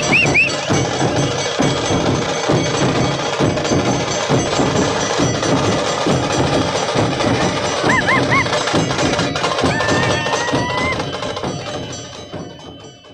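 Procession drum troupe beating large drums in a fast, dense rhythm amid crowd noise, with short high whistle-like notes near the start and about eight seconds in, and a held high note just after ten seconds. The sound fades out near the end.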